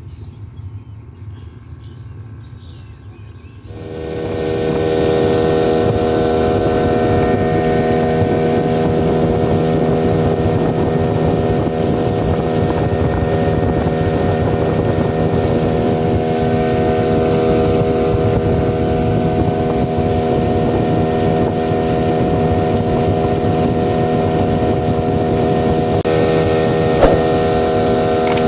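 Outboard motor of a small boat running at a steady speed, with rushing water from the hull; it is quieter for the first few seconds, then grows louder about four seconds in and holds one steady tone.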